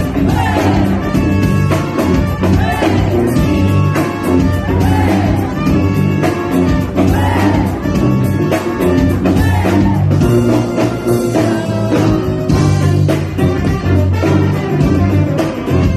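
Live band playing an up-tempo funk-jazz brass tune, with a repeating bass line under gliding melody lines and a drum kit keeping the beat.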